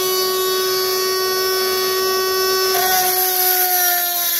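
Dremel rotary tool with a tungsten carbide cutter running at high speed, a steady high whine. About three seconds in its pitch sags a little and a hissing grind joins as the knife's steel is pressed to the bit to widen the sharpening choil.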